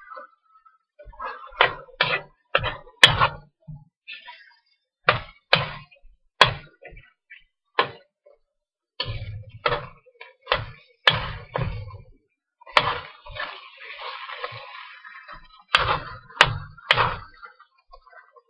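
Metal spoon knocking and scraping against the sides of a metal wok while stir-frying chicken pieces. The strokes are irregular, coming in quick runs of about two a second with short pauses between.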